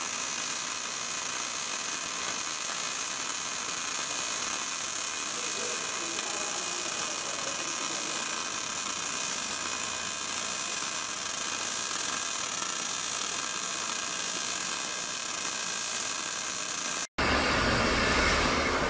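Steady high hissing machine noise with a few faint steady tones. About 17 s in it cuts off abruptly and gives way to a louder, deeper steady whir.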